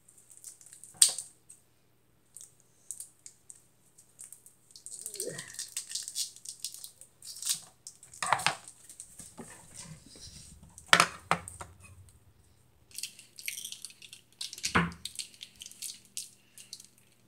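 Scissors snipping and a plastic wrapper crinkling as a tube of refrigerated cookie dough is cut open and its wrapper pulled off, with several sharp irregular clicks, the loudest about a second in and about 11 seconds in.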